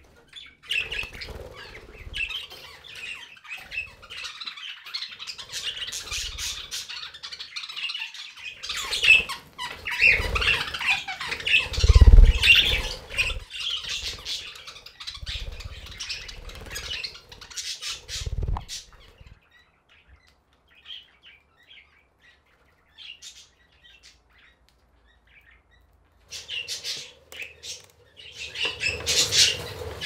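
A flock of budgerigars chattering and squawking, with wings flapping and a few heavy low thumps in the middle. The chatter stops about two-thirds in, leaving near silence, and starts again near the end.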